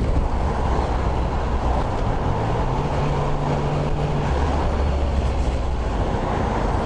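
Motorcycle engine running under way, with wind and road noise on the helmet microphone. The engine note steps up for a second or two about three seconds in, then settles back.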